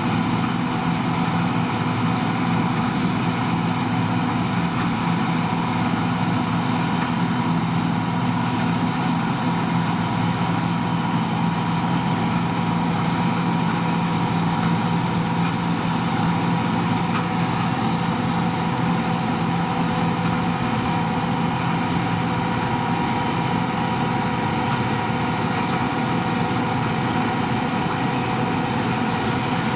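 John Deere 2258 combine harvester running steadily: an even engine drone with a few constant humming tones from its machinery, unchanging throughout.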